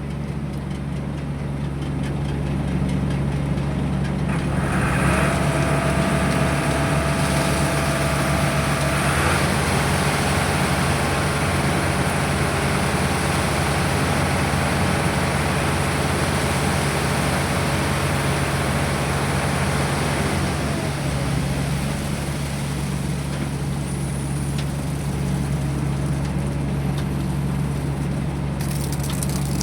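Machinery engine running steadily during a pile concrete pour, with a louder rushing, churning noise of concrete being poured from about five to twenty seconds in.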